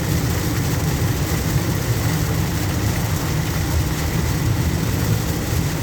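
Steady low rumble of a car driving on a wet road in heavy rain, heard from inside the cabin, with an even hiss of rain and tyre spray over it.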